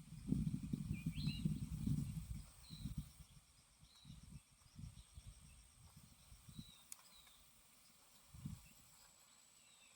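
Outdoor bird chirps, short calls a handful of times, over low rustling and bumping that fades out after about three seconds.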